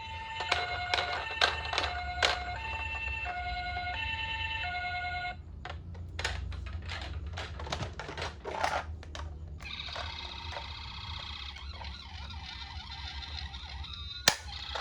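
Toy ambulance's electronic siren sounding a hi-lo two-tone pattern for about five seconds, with a few knocks. Then comes a run of clicks and knocks from the plastic toy, followed by a busier, higher electronic siren sound, with one sharp knock near the end.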